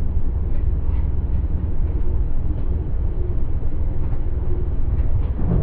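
Side-by-side UTV engine idling, a steady low rumble heard on a muffled microphone with the high end cut off.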